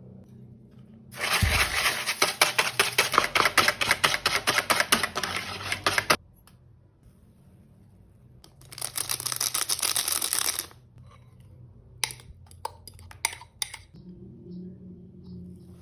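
Batter being mixed by hand in a bowl: a utensil beating fast and rhythmically against the bowl in two bouts, the first about five seconds long and the second about two, followed by a few light clicks of the utensil on the bowl.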